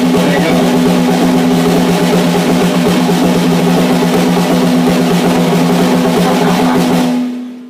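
A rock band's loud sustained chord or drone through amplifiers: two steady low notes held under a dense wash of noise. It cuts off about seven seconds in and rings out briefly.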